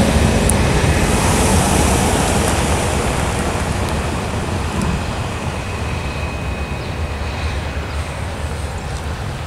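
Freight train of tank cars rolling away over the rails, a steady rumble of wheels on track that slowly fades.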